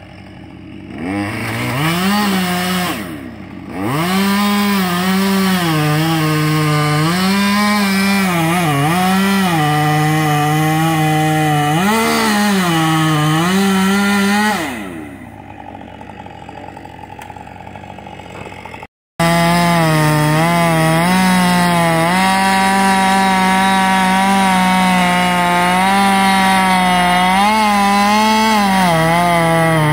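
Husqvarna 550 XP two-stroke chainsaw revving up, then cutting wood at full throttle, its pitch dipping each time the chain loads in the cut. Partway through it drops back to idle, then after a short break it runs wide open and cuts again with the same dips.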